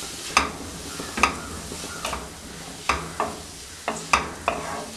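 A spatula stirring and scraping chopped beetroot and spinach stems around a non-stick pan, a stroke about every second over a steady frying sizzle as the vegetables sauté.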